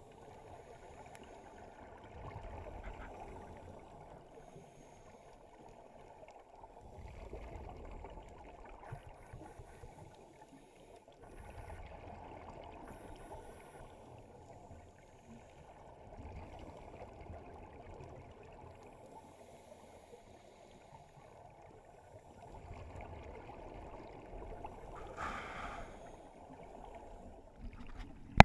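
Scuba breathing recorded underwater: the regulator's exhaled bubbles gurgle in a slow cycle, swelling and fading about every four to five seconds over a muffled underwater hiss.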